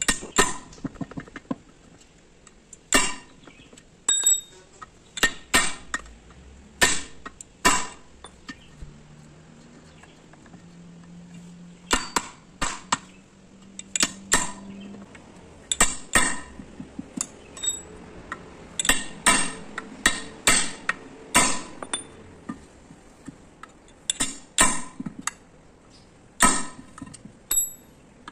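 A hammer strikes a steel punch to drive rivets out of an Ashok Leyland bus brake shoe. It gives sharp metallic clinks with a short ringing ping, in irregular groups of one to three blows, with a pause of a few seconds about a third of the way in.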